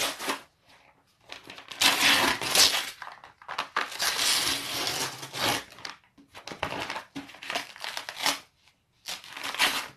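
Brown paper packaging being crinkled and torn open by hand in irregular bursts, with a few short pauses.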